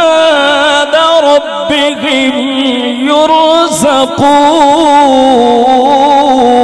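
A man's voice singing a long, drawn-out melodic phrase in the chanted style of Quran recitation, its held notes wavering and ornamented.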